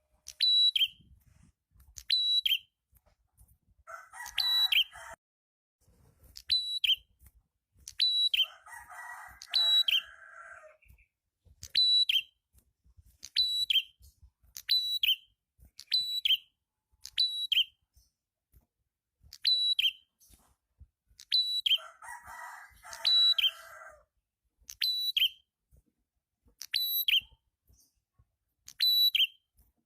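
Prenjak (prinia warbler) calling over and over, about once every second and a half: each call is a sharp high note that drops straight into a lower one. Three times a lower, buzzy chattering of a second or two joins in.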